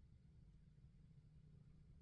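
Near silence: faint, steady low room rumble.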